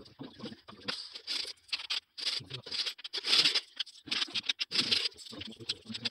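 500-yen coins slid, clinked and stacked by hand on a wooden table as they are counted: a quick run of small clicks and scrapes, loudest about three seconds in.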